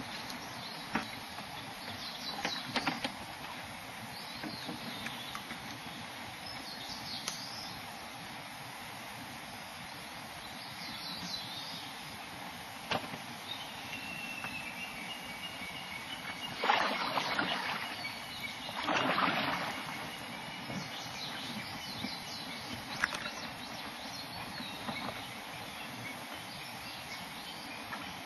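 Kayak paddling on calm lake water: the paddle dips and drips, with scattered light knocks and two louder splashes about two-thirds of the way through.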